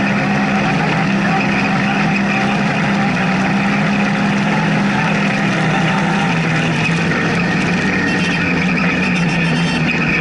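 Polaris RZR side-by-side's engine running hard as the car accelerates, heard from inside the open cockpit: a loud, steady drone that holds one pitch while the car gains speed.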